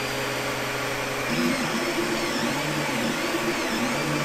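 Creality Ender 3 3D printer printing its first layer. Its stepper motors whine in steady tones that keep jumping in pitch as the print head and bed move, with faint rising and falling whistles as they speed up and slow down. Under it runs the steady whir of the hotend cooling fans.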